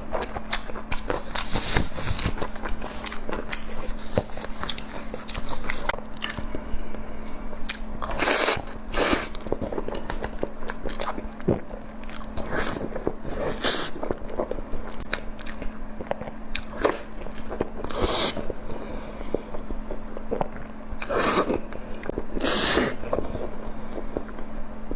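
Close-miked mukbang eating: repeated bites and crunchy chewing, with louder crunches every second or two, over a steady low hum.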